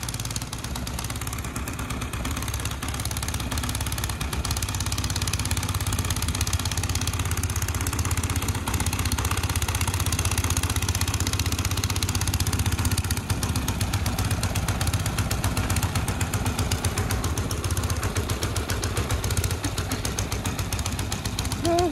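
Gas snow blower engine running steadily under load while the auger chews through deep snow and the chute throws it clear, a constant low hum with a fast, even pulse.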